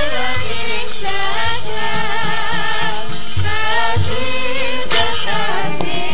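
Javanese gamelan music, with a singer's wavering, ornamented voice over the ensemble and low drum strokes recurring underneath. About five seconds in there is a short burst of clattering.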